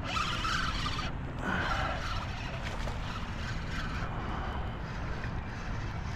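A hooked largemouth bass splashing at the surface as it is reeled in to the bank on a spinning reel, under a steady low outdoor rumble.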